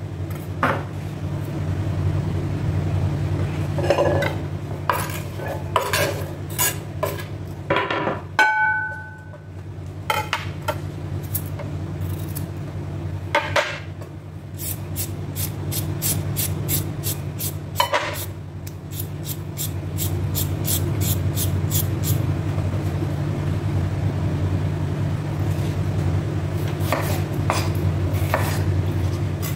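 Kitchen knife chopping tomatoes and then slicing cucumber on a wooden cutting board: scattered strokes at first, then a fast, even run of cuts in the last third. A single short ringing clink comes about eight seconds in, over a steady low hum.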